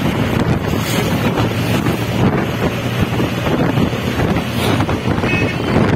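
Wind buffeting the microphone over the steady road rumble of a car driving at speed.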